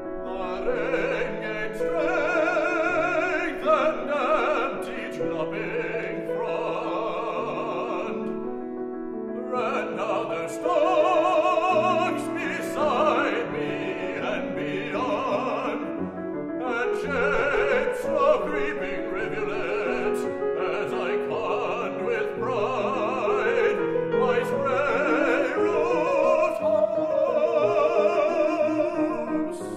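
Classical baritone singing an English art song with grand piano accompaniment, the voice in long phrases with a wide vibrato and short breaks between them.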